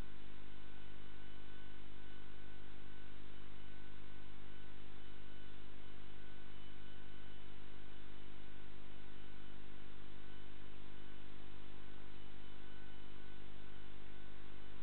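Steady, unchanging hum with a faint hiss and a thin high tone above it; no ball strikes or other sudden sounds.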